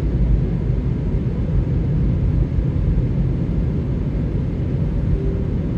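Steady low rumble of a car driving, its engine and road noise picked up by a dashcam inside the cabin.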